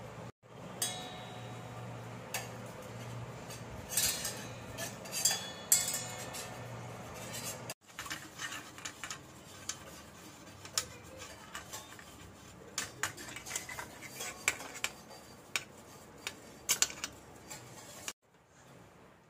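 Metal spoon clinking and scraping in a stainless steel bowl of egg, with several sharp ringing knocks. After a cut about eight seconds in, a block of cheese is rubbed over a metal box grater: a long run of quick small scraping ticks.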